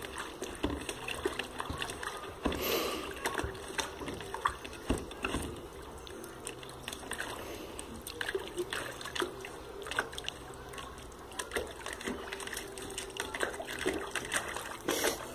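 A dog pawing and snapping at the water in a plastic basin, a run of quick, irregular splashes and sloshes.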